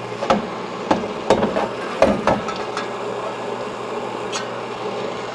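A series of light metal clunks and taps as a piston is handled and slid into a freshly honed two-stroke motorcycle cylinder resting on a steel tray, heard over a steady background hum. The knocks come close together in the first half and once more near the end.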